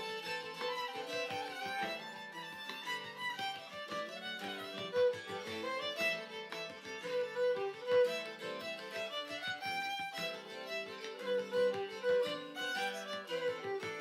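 Background instrumental music: a tune of many quickly changing notes.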